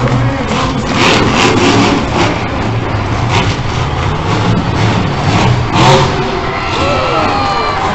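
Monster truck's supercharged V8 engine revving hard in repeated surges as the truck drives and launches off a ramp, loudest about six seconds in.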